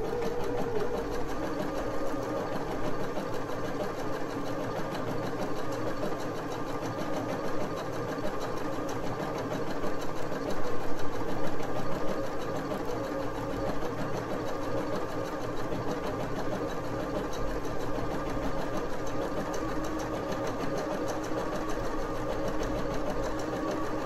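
Janome HC8100 computerized sewing machine running steadily while sewing a decorative pattern stitch, with the rapid even rhythm of the needle strokes over the motor hum; it runs a little louder about ten seconds in.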